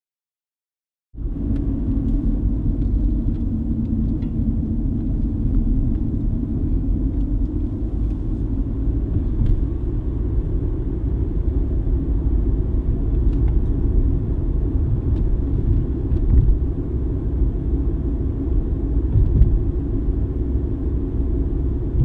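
Road and engine noise heard inside a moving car: a steady low rumble that starts suddenly about a second in.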